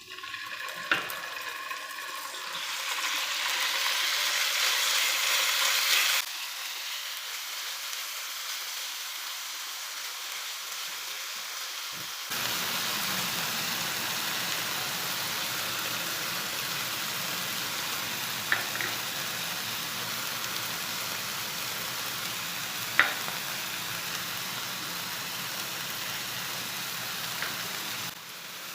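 Food sizzling in hot oil in a pan: a steady hiss that swells for a few seconds and changes abruptly a few times. There are a few sharp clicks.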